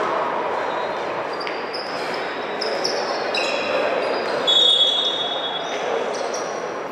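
Indoor volleyball game: players' shoes squeak on the court in a string of short, high squeaks starting about a second and a half in, the loudest around four and a half seconds. A steady crowd murmur carries on underneath.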